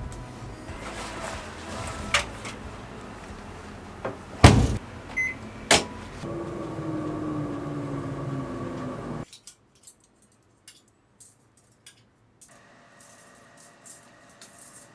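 Household clatter: several sharp knocks and bangs, like objects or doors being handled. Then a steady hum with a slightly falling tone for about three seconds, which cuts off suddenly and leaves only faint ticks.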